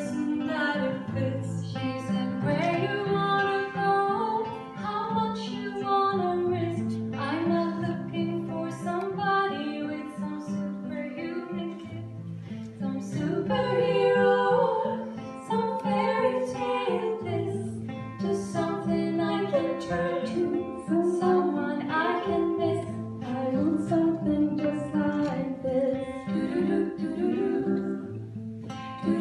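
A women's vocal ensemble singing in harmony over a strummed acoustic guitar, live, with a repeating chord progression underneath.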